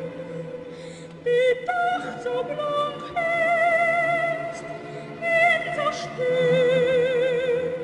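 Operatic singing: a high voice holds long notes with wide vibrato over a low sustained accompaniment, with a run of short rising notes about a second in.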